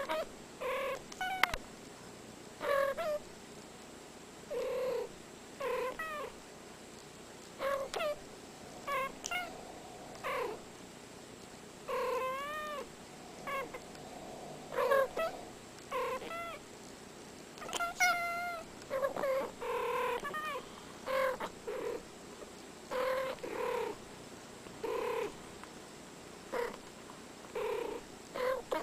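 Cats meowing in many short calls, about one every second or so, some bending up and down in pitch.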